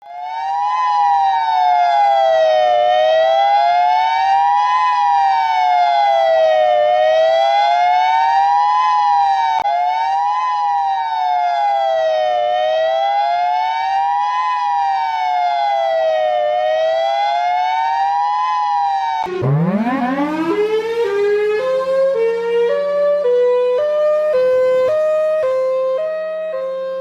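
Tornado warning siren sound effect: a siren wailing up and down, one rise and fall about every four seconds. About 19 seconds in it changes to a siren that winds up in pitch from low, then steps back and forth between two tones over a steady low hum.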